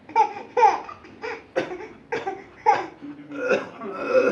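A baby giving a run of short, high-pitched voiced bursts, about two a second, laugh-like in character.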